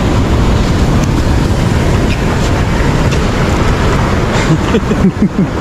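Wind buffeting the microphone, with sea surf washing on the beach behind it.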